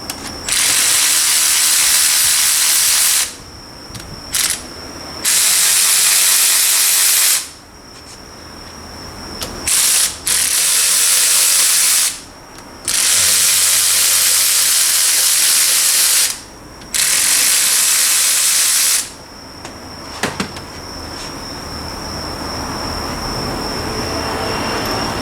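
A compressed-air tool runs in about five bursts of one and a half to three and a half seconds, each a loud rush of air hiss with a whirring mechanism under it. A lower steady noise builds up near the end.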